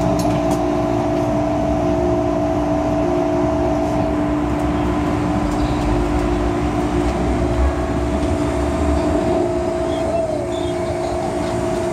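MTR M-Train electric multiple unit running out of a station into a tunnel, heard from inside the car. The traction equipment whines on several steady tones over the rumble of wheels on rail, and the rumble swells in the middle.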